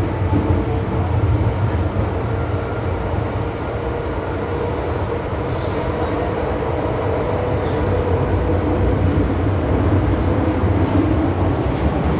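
MTR M-Train passenger car in motion, heard from inside: a steady rumble of wheels on rail and running gear, with a faint steady whine that fades out near the end.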